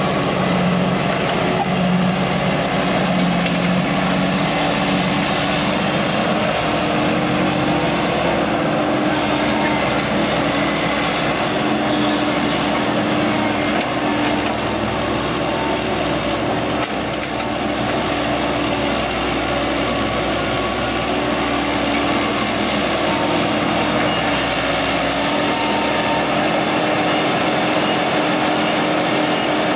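Excavator's diesel engine running steadily while working, its hum shifting up in pitch about six seconds in.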